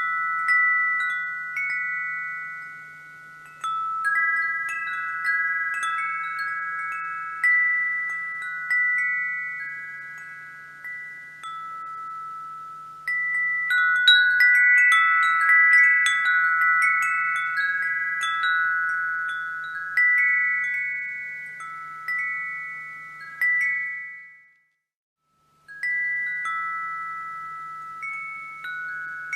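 Wind chimes ringing, with several high notes struck at irregular moments, each ringing on and fading as the next overlaps it. A faint steady low hum lies underneath. The sound cuts out completely for about a second roughly five seconds before the end, then the chimes start again.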